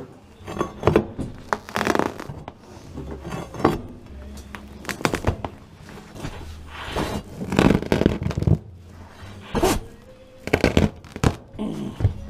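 Irregular scraping, tearing and knocking of interior demolition work, as old panelling and fittings are pried and pulled off.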